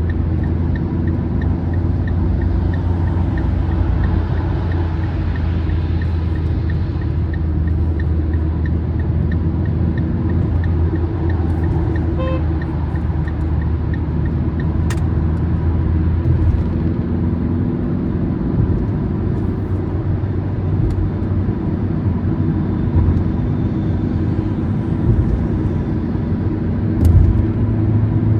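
A car cruising on a highway, heard inside the cabin: steady tyre and road rumble with a low engine hum. A faint regular ticking runs through the first several seconds, and there are a couple of brief clicks later on.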